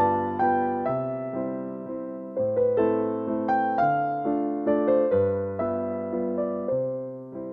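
Background music: electric piano playing a gentle melody over changing bass notes.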